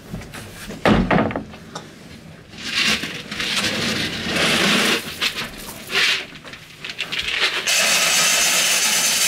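Cattle feed pellets being scooped and handled with a plastic bucket: a knock about a second in, then scraping and rustling, and a steady rushing hiss for the last second and a half.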